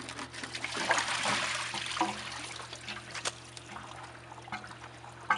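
Water spilling out of a pool pump's housing onto concrete as the motor is pulled away from the pump body, strongest about a second in and then thinning to a trickle, with a few sharp clicks from the parts being handled.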